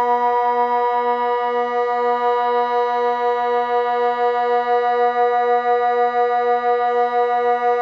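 Civil-defence siren sounding the Swiss water alarm: one long, low tone held at a fixed pitch without rising or falling, wavering slightly about twice a second.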